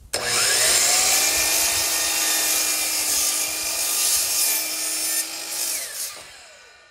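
Miter saw blade spinning up with a rising whine, cutting a 45-degree angle through a length of baseboard trim laid flat, then whining down as the blade coasts to a stop near the end.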